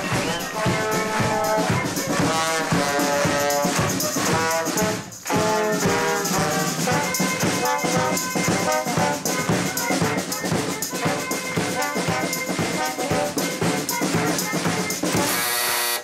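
Girls' guard marching band playing a march on trumpets, trombones and drums, including a big bass drum. The music breaks off briefly about five seconds in, then carries on.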